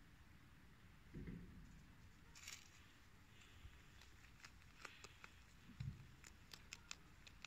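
Faint crisp crunching and clicking of a rabbit biting and chewing a cabbage leaf, growing busier after a few seconds, with two soft low thumps.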